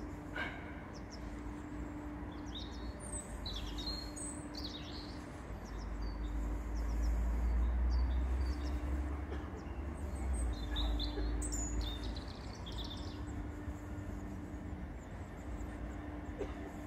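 Small birds chirping and calling in short, scattered phrases over a steady low rumble that swells in the middle and then eases off.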